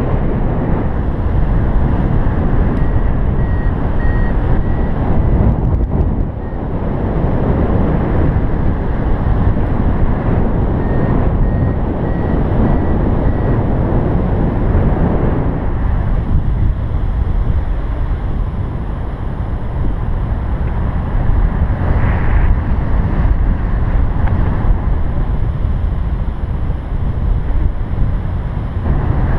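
Wind rushing over the microphone of a paraglider in flight. A variometer gives two short runs of faint high beeps, a few seconds in and again about ten seconds later, its signal for climbing in lift.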